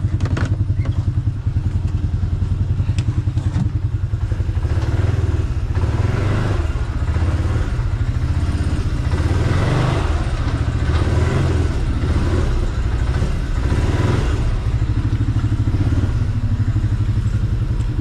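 Pickup truck engine running while reversing with the wood chipper in tow, pulling harder from about five seconds in until about fourteen seconds, then easing back toward idle.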